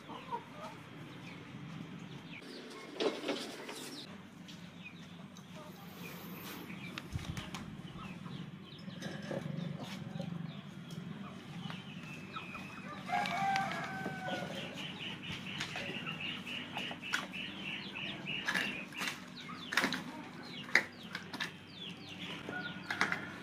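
Scattered knocks and clatter of clay bricks and a wire fan guard being handled on a concrete floor, over a steady low hum. Chickens cluck and call in the background, with a rapid run of short chirps partway through.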